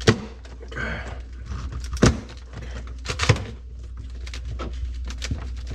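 Plastic refrigerator parts being handled and knocked: three sharp knocks, near the start, about two seconds in and about three seconds in, with lighter clicks and rattles between, over a low steady hum.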